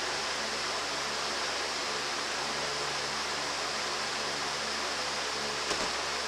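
Steady hiss with a faint low hum underneath, and one small click near the end.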